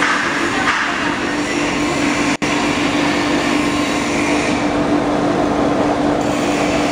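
Foam splitting machine running steadily as it slices memory foam into thin sheets: an even mechanical noise with a steady hum.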